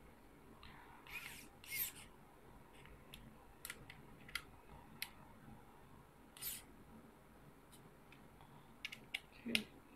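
Small precision screwdriver tightening screws into a hard-disk tray: faint scattered clicks and brief scratchy scrapes of the bit on the screw heads at irregular intervals, with a brief low knock near the end.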